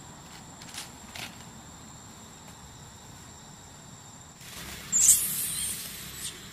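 Steady, thin, high insect trill in the background, with two faint clicks about a second in. About five seconds in, a sudden loud, hissy burst of noise lasts about a second and a half.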